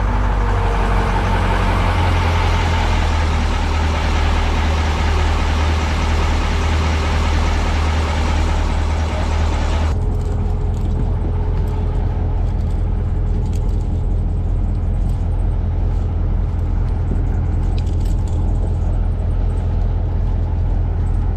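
A ship's engine running with a steady low hum. A rushing hiss over it cuts off suddenly about halfway through, and the hum carries on.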